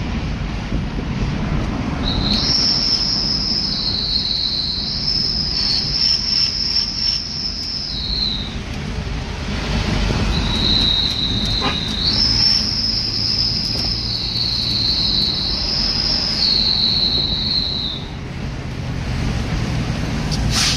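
Road and engine noise inside a moving vehicle's cabin, a steady rumble. Twice, for several seconds each time, a high-pitched whistling tone steps back and forth between two pitches over it.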